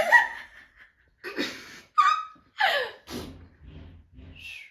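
A person snorting, blowing a raspberry and attempting a whistle in quick succession: a string of short, loud nose and mouth noises. The whistle attempt is weak, from someone who says they can't whistle.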